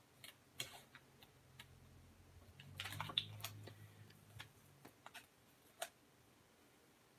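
Faint scattered clicks and light taps of paper stickers and washi tape being handled and pressed onto a paper planner page, busiest about three seconds in.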